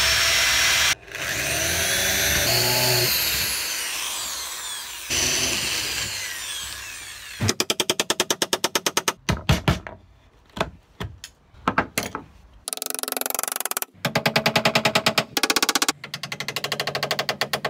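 Corded electric drill boring into wooden table slats in three runs. After that come stretches of rapid, evenly spaced knocks, about nine a second: a wood chisel struck with a hammer.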